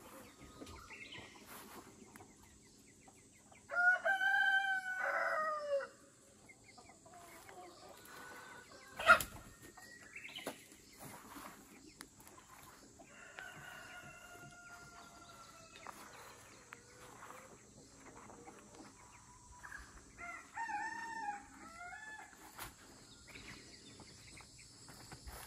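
A rooster crowing loudly about four seconds in, one crow lasting about two seconds, followed later by fainter crows and calls from the flock. A single sharp knock sounds about nine seconds in.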